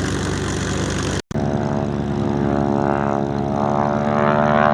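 Boeing Stearman biplanes' radial engines and propellers running steadily, a sound made of many even tones. It drops out completely for an instant about a second in and then carries on.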